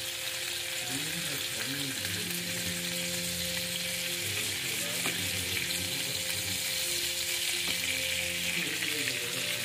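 Butter and marinade sizzling steadily in a ridged grill pan under skewered pineapple cubes frying over a medium gas flame.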